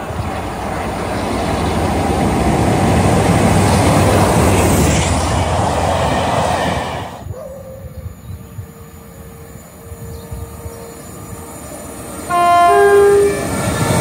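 Train running through at speed, a loud steady rail rumble that cuts off abruptly about seven seconds in. Near the end, an arriving Elizabeth line Class 345 electric unit sounds its two-tone horn in a short blast of about a second, a lower note stepping up to a higher one.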